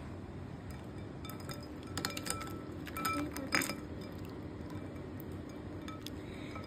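A few light clinks of a toy monster truck and ice knocking against a glass bowl of ice water, clustered between about two and four seconds in.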